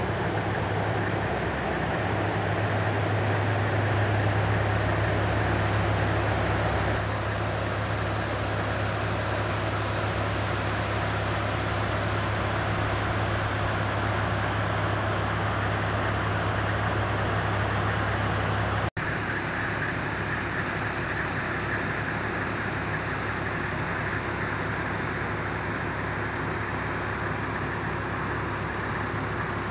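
Steady low drone of a Toyota Land Cruiser HZJ78 bush taxi's diesel engine running, with a constant hum under a wash of noise. The sound drops out for an instant about nineteen seconds in and comes back with the low hum weaker.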